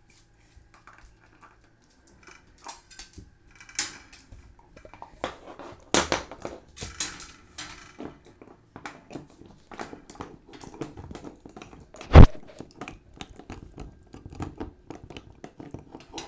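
Beagle gnawing on a deer-antler chew: irregular hard clicks and scrapes of teeth on antler, with one loud knock about twelve seconds in.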